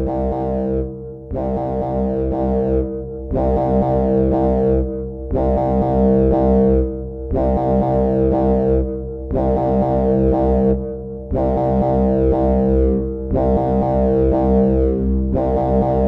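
Arturia Buchla Easel V software synthesizer playing a repeating patch: pitched notes with a bright attack that quickly darkens and fades, retriggering about once a second over a steady low drone.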